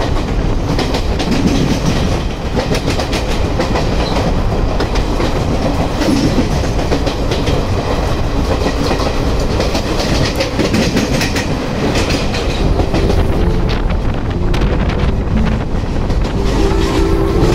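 A moving passenger train heard from an open coach door: a steady rumble and wind rush with the wheels clicking over the rail joints, while it runs close alongside another train for the first part.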